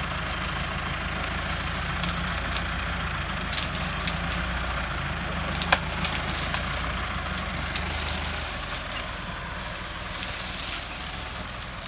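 Massey Ferguson 385 tractor's diesel engine running steadily under load as it drags a tree over, with several sharp cracks from the wood and roots, the loudest about six seconds in. The engine sound eases off near the end.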